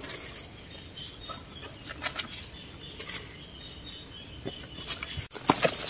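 Mustard-green leaves rustling and stems snapping as the plants are picked by hand, in a few separate crackles. Faint bird chirps in the background.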